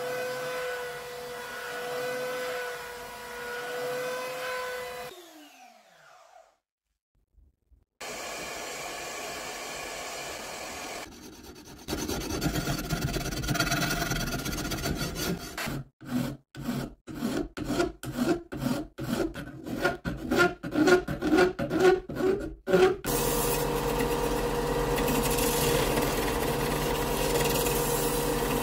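Workshop tool sounds across several cuts. A small power tool runs steadily, then winds down about five seconds in. After a pause comes scraping, then about a dozen strokes of a hand rasp or file on wood at roughly two a second. Near the end a motor-driven tool runs steadily.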